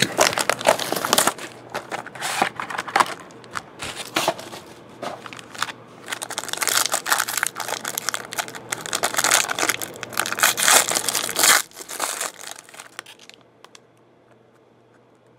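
Plastic wrapping and a foil trading-card pack crinkling and tearing open as a sealed card box is broken, with many sharp crackles. The crinkling stops shortly before the end.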